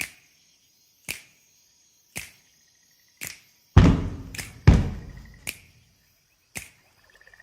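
Sparse percussive opening of a song: sharp hits about once a second, joined about halfway through by deep bass hits.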